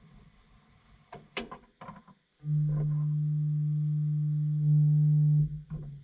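LG top-loading washing machine starting up: a few sharp clicks, then a steady low hum for about three seconds that steps up slightly and cuts off suddenly, followed by another click or two.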